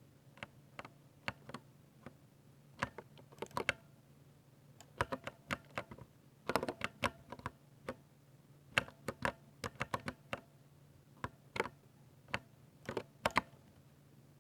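Typing on a 60% Ducky mechanical keyboard with silver (linear) switches: irregular keystrokes, often in quick runs, with short pauses between bursts.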